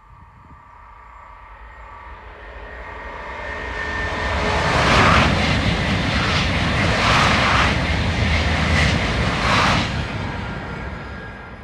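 High-speed train passing at speed: a rushing sound that builds as it approaches, then a run of about five regular surges as the cars go by, easing off near the end.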